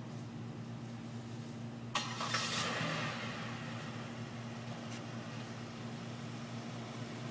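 A car drives by outside: its noise rises suddenly about two seconds in and fades away over a second or so, over a steady low electrical hum.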